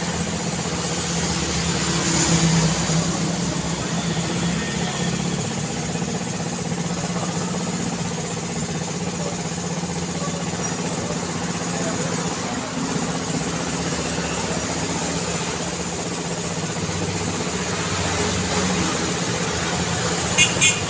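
Steady city road traffic: vehicle engines running and tyre noise, with one vehicle louder about two seconds in. A few short, sharp beeps come near the end.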